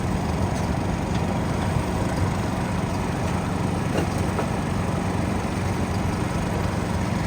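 A small engine running steadily at idle, an even low hum.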